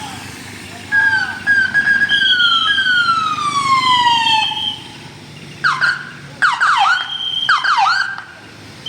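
Telolet basuri musical bus horn playing a melody: held notes and long downward slides in the first half, then quick rising-and-falling warbling notes from about five and a half seconds in.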